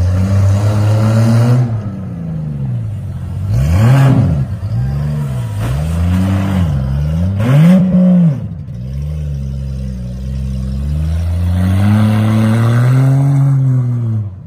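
Demolition derby SUV engines revving hard, their pitch rising and falling again and again as the drivers floor it and back off on the mud, loudest around four and eight seconds in and climbing again near the end.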